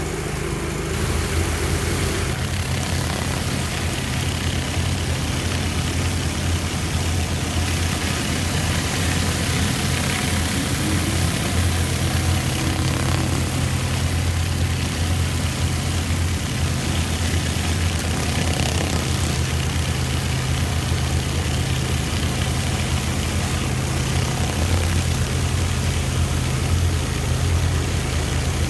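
Pressure washer engine running steadily under load, with the even hiss of high-pressure water spraying.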